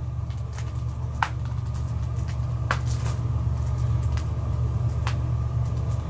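A steady low hum, with a few faint clicks and crinkles, about three strong ones, as the plastic wrapping on a Blu-ray case is picked at and torn.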